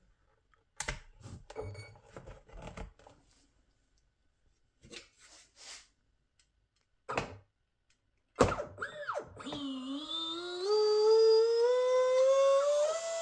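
Bullet connectors and wires being handled and plugged in, with scattered clicks and knocks. About eight seconds in, a Rocket 2948 3450 kV brushless motor starts spinning unloaded on a bench test, its whine wavering and then rising slowly in pitch as the throttle is eased up.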